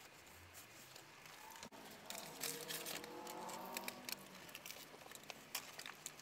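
Quiet eating sounds: small scattered clicks and crinkles of chewing and handling wrapped fast food, with a soft drawn-out voice sound, like a murmured 'mm', from about two to four seconds in.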